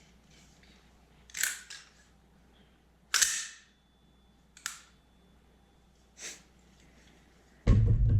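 Four sharp mechanical clicks, a second or two apart, the second the loudest. Music with a heavy beat starts near the end.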